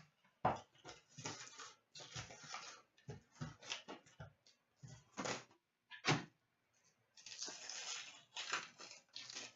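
Trading card box and foil packs being opened: irregular crinkling, tearing and rustling of wrappers and cardboard, with two sharp knocks, about half a second in and about six seconds in.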